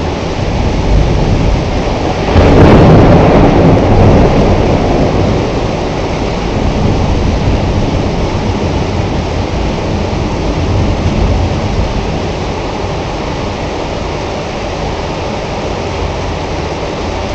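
Heavy rain falling steadily, with a roll of thunder that swells about two and a half seconds in and rumbles away over the next few seconds.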